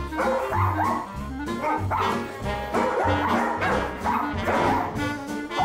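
Background music with a steady beat, over which small dogs give several short yips and barks while wrestling in play.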